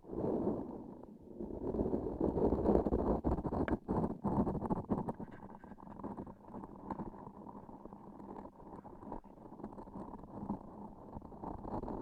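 Close-miked sticky ASMR textures: a transparent sticky object with a filling inside being pressed and squeezed, giving a dense, tacky crackling with small clicks. It is louder for the first few seconds, then softer.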